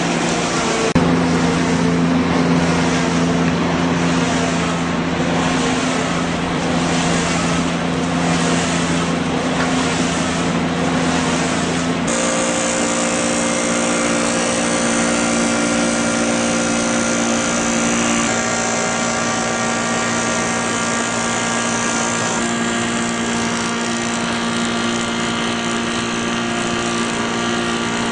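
Log lathe running: a steady machine hum with several held tones over a hiss, the tones shifting in pitch about twelve seconds in and twice more later. Through the first part the high hiss swells regularly about once a second.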